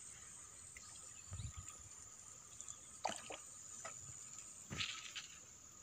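Quiet river ambience: a faint, steady high insect buzz, broken by a few soft water drips and small splashes around the canoe, about three seconds in and again near the end.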